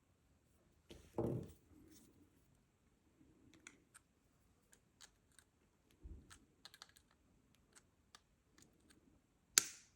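Small, irregular clicks and taps of a tiny nut being tried on the threaded barrel of an MMCX socket by hand, with a soft bump about a second in and a sharper click near the end.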